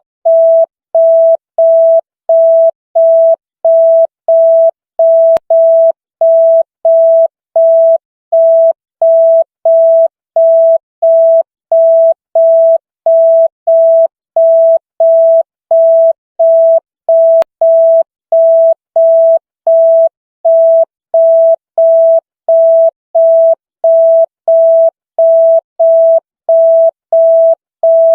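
Electronic single-tone beep signal, a steady mid-pitched tone switching on and off evenly about one and a half times a second, like a telephone busy tone.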